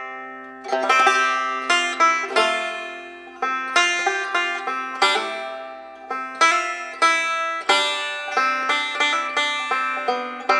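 Background music: a plucked string instrument playing single notes and chords at an unhurried pace, each note ringing out and fading.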